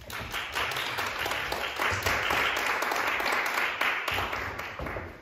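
A small audience clapping, fading out near the end.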